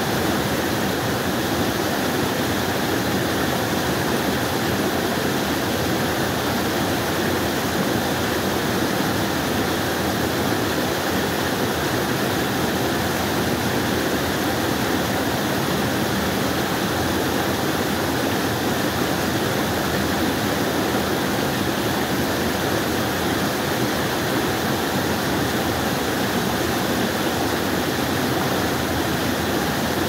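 Mountain stream and small waterfall rushing steadily over rocks, water tumbling and splashing between boulders.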